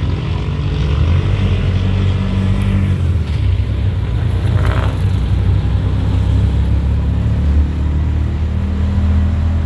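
Engine of a motor tricycle (motorcycle with sidecar) running steadily, heard from inside the passenger cabin while it drives through traffic, with a short higher-pitched noise about five seconds in.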